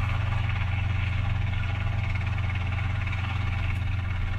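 Steady low electrical hum with an even fan-like hiss from the Pilatus PC-12NG's avionics running on the standby bus while the lower display unit powers up.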